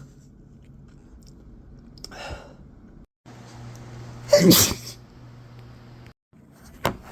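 A man's loud, explosive sneeze about four and a half seconds in, after a softer, shorter burst about two seconds in, with a brief sharp sound near the end.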